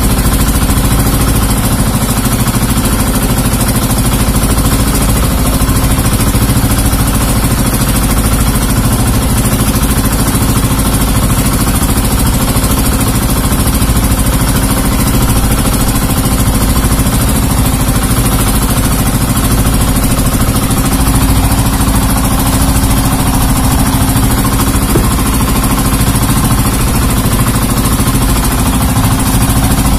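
Outrigger fishing boat's engine running steadily under way, a loud continuous drone with the hiss of water and wind over it.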